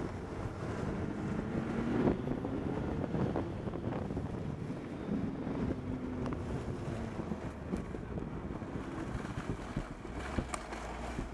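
Wind buffeting the microphone of a moving camera over a steady low rumble of travel along a snowy trail, with a few sharp knocks near the end.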